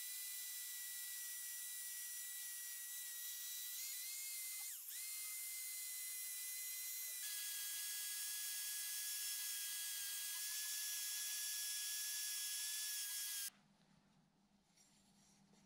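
Black & Decker power file (narrow belt sander) running with a steady high whine and hiss as the steel blade of a drawknife is held against its belt. The pitch dips briefly about five seconds in and steps slightly lower a couple of seconds later. The tool cuts off suddenly near the end.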